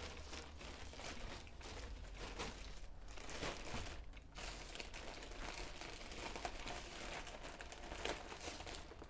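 A plastic bag crinkling and rustling without a break as it is handled and rummaged through.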